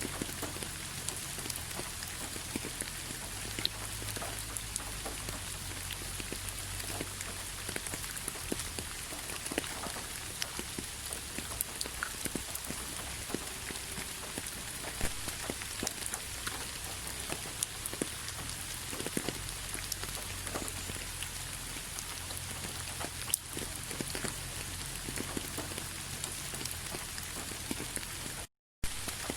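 Rain falling steadily: an even hiss with many small, irregular taps of drops striking a surface. The sound cuts out completely for a moment near the end.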